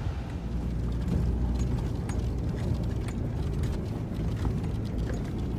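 Low engine and road rumble inside a moving Toyota SUV's cabin, with scattered light clicks and rattles.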